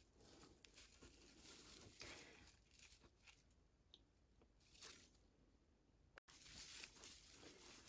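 Faint rustling and crinkling of raffia yarn as a crochet hook pulls loops through the stitches, with a slightly louder rustle about five seconds in.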